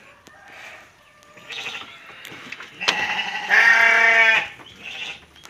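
A sheep bleating: one loud, long, wavering bleat about three seconds in, lasting about a second and a half.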